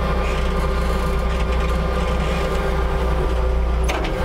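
LPG-powered Jungheinrich forklift running steadily with a low hum as it drives slowly forward, with one short sharp click near the end.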